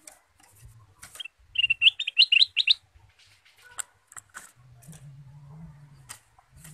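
Ruby-throated bulbul (kutilang emas) singing: a quick run of about eight clear whistled notes, rising and falling, for just over a second. A few short sharp calls come before and after it.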